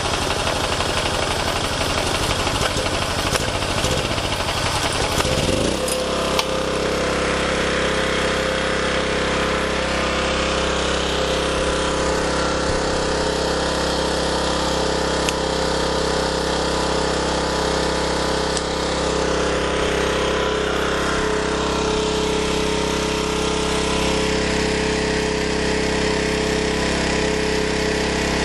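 Small gasoline portable generator engine running just after being started. It sounds uneven for the first few seconds, then settles into a steady, even running note about six seconds in.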